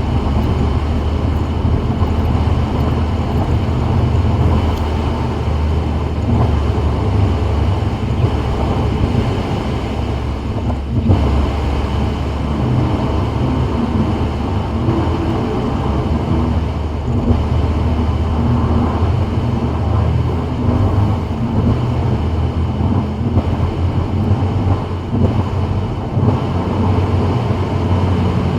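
Steady road noise of a 2024 Subaru WRX driving on a rain-wet freeway: a low rumble of tyres and drivetrain with an even hiss above it.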